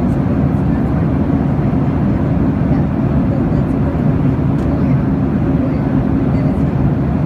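Airliner cabin noise at cruise altitude: a steady, loud rush of engine and airflow sound, heavy in the low end, heard from inside the cabin at a window seat.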